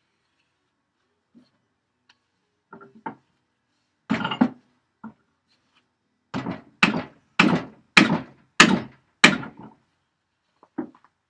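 Hammer blows on the parts of an old blacksmith's leg vise during disassembly. A few light knocks come first, then a run of about six heavy, evenly spaced strikes, roughly one every half second, each a dull thunk without a ringing tail.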